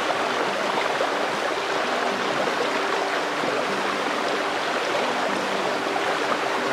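Shallow rocky stream rushing and churning over stones in small rapids, loud and close to the microphone.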